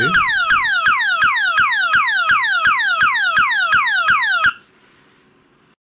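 Dorne & Margolin DMELT-8.1 emergency locator transmitter's audio modulation tone, played through a small loudspeaker wired to the board: a falling whistle repeated about three and a half times a second. This is the swept-tone ELT signal a receiver would hear. It cuts off suddenly near the end.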